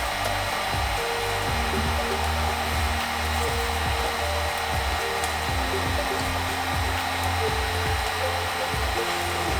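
Steady whirring hiss like a small fan running, with quiet background music of changing held notes over it.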